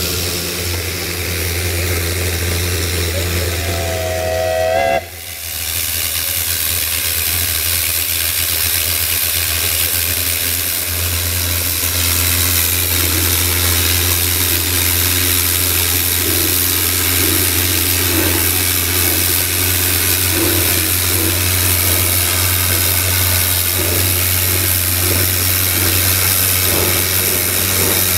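Narrow-gauge steam locomotive hissing steadily over a low hum. A short whistle note sounds about four seconds in, and the sound breaks off sharply just after it before the hissing resumes.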